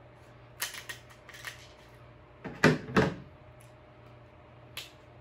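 King crab leg shell clicking and cracking as the meat is picked out of it by hand and fork. There are a few light clicks, then a louder cluster of cracks about two and a half seconds in, and one last click near the end.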